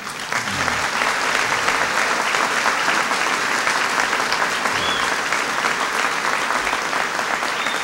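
Audience applause, breaking out at once and holding steady as a dense crackle of many hands clapping.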